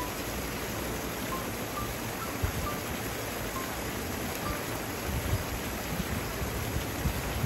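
Steady rushing splash of a paddle-wheel aerator churning pool water, with a few low thumps.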